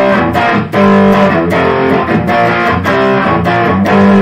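Electric guitar strumming chords in a steady rhythm, about three strums a second, played as a rhythm-guitar riff for a pop-punk song.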